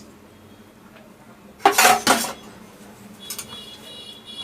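Crushed dry ginger and a spoon clattering in a kadai as the ginger is dry-roasted: one short loud clatter about two seconds in, then fainter clinks with a light metallic ringing near the end.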